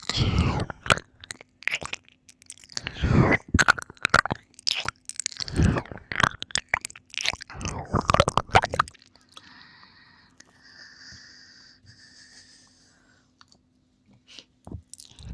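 Close-miked wet mouth and licking sounds, in loud bursts every two seconds or so. These are followed by a soft, drawn-out breath lasting about three seconds, and a few small mouth clicks near the end.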